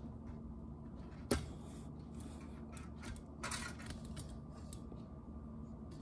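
Kitchen handling sounds at a stove over a steady low hum: one sharp click a little over a second in, then a brief rustle about three and a half seconds in, with a few faint ticks.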